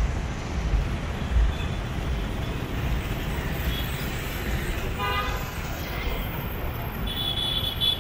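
City road traffic noise with vehicle horns honking: one horn sounds briefly about five seconds in and a higher-pitched horn sounds near the end. A few low thumps come in the first second and a half.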